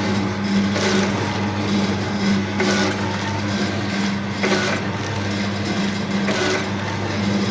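Automatic auger-filler powder packing machine running as it fills and seals starch sachets. A steady electric hum runs throughout, with a short burst of noise about every two seconds, once per packing cycle.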